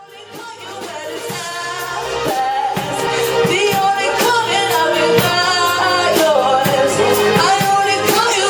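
Live band playing an upbeat groove with singing and a steady drum beat, fading in from silence over the first few seconds.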